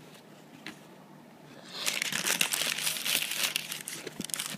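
Tissue paper crinkling and rustling as hands fold it back from a pair of sneakers in a cardboard shoebox, starting about two seconds in.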